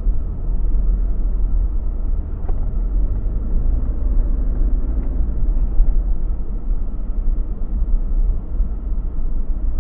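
A car's engine and tyres on the road, a steady low rumble heard from inside the cabin while driving.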